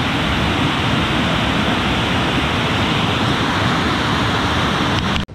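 Small waterfall and rapids rushing steadily over granite slabs, the river running high and wild. The sound cuts off suddenly near the end.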